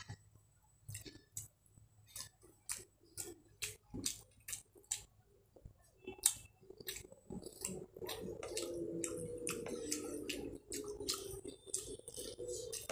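Close-up mouth sounds of someone eating rice and curry by hand: a steady run of short, wet chewing clicks and smacks. From about halfway on, a faint wavering tone sits underneath.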